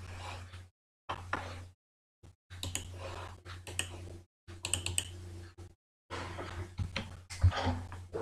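Scattered clicks and taps of a computer mouse and keyboard, irregular and spaced out, over a steady low electrical hum.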